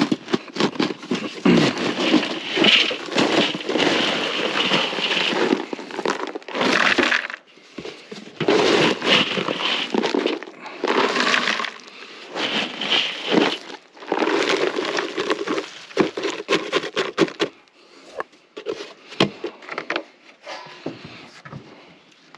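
Dry crunching and crackling in bursts of one to three seconds, with short pauses between.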